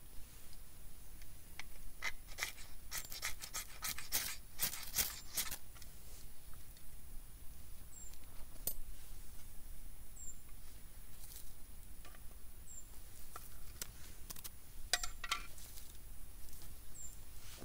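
Quick, sharp scraping strokes of a knife struck along a fire steel to throw sparks onto tinder, in a run of strikes about two to five seconds in and a few more later. A small bird's faint high chirp repeats every couple of seconds.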